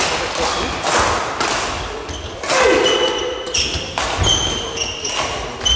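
Badminton doubles rally: rackets hitting the shuttlecock and players' feet landing, with short high squeaks of court shoes on the hall floor.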